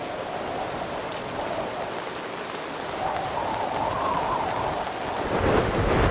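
Heavy rain falling on a tent, with gusting wind that grows stronger near the end.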